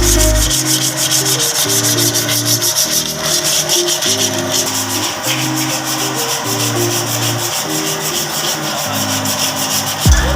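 Background music: a stepping melody and bass line over a fast, even run of hi-hat-like ticks, with the deep bass dropping out for most of the stretch and coming back near the end.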